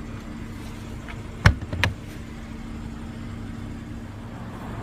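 Rear seatback of a 2015 BMW M235i Convertible being released and folded down from the trunk: a light click about a second in, then a sharp knock and a second knock just after as the latch lets go and the seatback drops. A steady low hum runs underneath.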